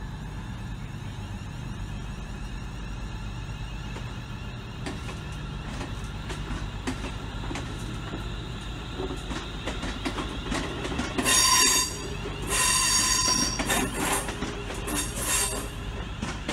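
British Rail Class 350 Desiro electric multiple unit moving slowly through the station with a low rumble, its wheels clicking over rail joints and points. After about eleven seconds come two loud spells of high-pitched wheel squeal.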